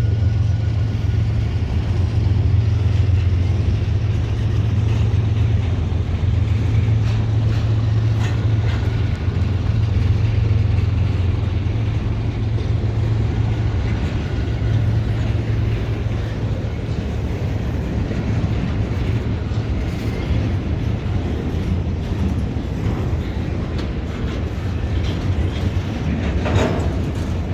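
Diesel freight train moving on the tracks: a steady low locomotive engine rumble over the noise of rolling rail cars.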